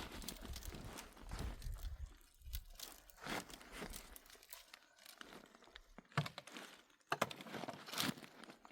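Irregular rustling and crunching, with sharp knocks about six and seven seconds in.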